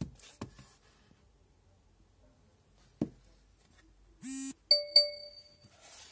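Electronic sound panel of a Thomas & Friends Play-a-Sound board book: a short buzzy tone, then two quick bell dings that ring on for about a second. Before that, a few soft knocks of the cardboard book being handled.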